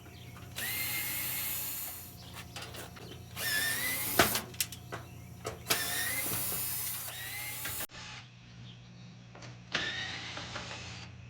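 Power drill or driver run in four short bursts, its motor whine rising in pitch as it spins up, while screws are driven out of an aluminum storm door frame. Sharp metallic clicks come between the runs, the loudest about four seconds in.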